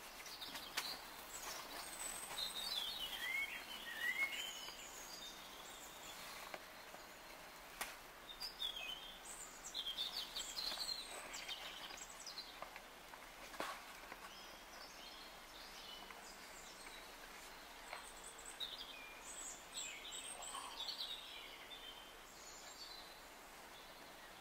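Faint birdsong: several small birds chirping and trilling on and off, with a few faint knocks scattered among it.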